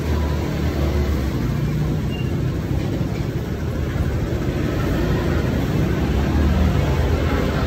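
Steady low rumble of road vehicles, with no clear breaks or sharp sounds standing out.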